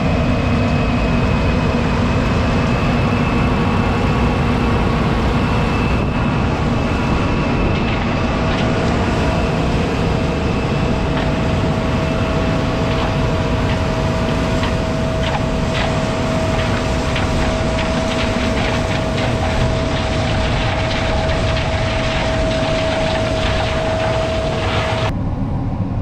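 John Deere S680 combine running, heard from inside its cab: a steady loud mechanical drone with a steady high whine on top. The whine and the higher part of the sound cut off suddenly about a second before the end.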